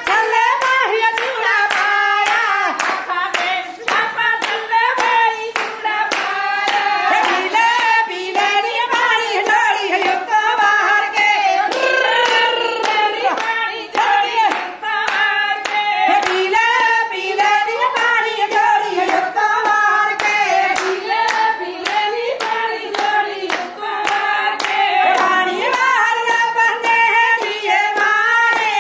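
A woman singing a Punjabi folk song to steady, rhythmic hand clapping.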